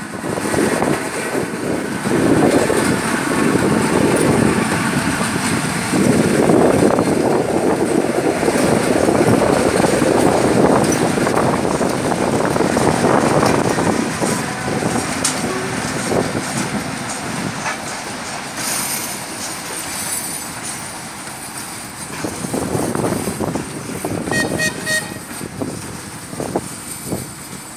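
An ER2T electric train passes with a steady rumble of wheels on rails, loudest in the first half. Then a ChME3 diesel shunting locomotive rolls by hauling hopper wagons. A brief high tone sounds about 24 seconds in.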